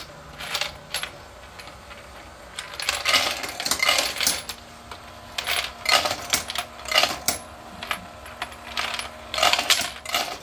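.223 brass cases clinking and rattling against each other and the 3D-printed plastic as the electric case feeder's rotating plate carries them round, in irregular clusters of metallic clinks. A faint steady hum sets in about four seconds in.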